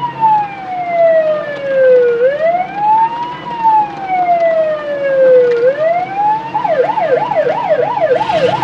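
Ambulance siren in a slow wail, its pitch sweeping down and back up twice, then switching about six and a half seconds in to a fast yelp of about three sweeps a second, over a low steady rumble.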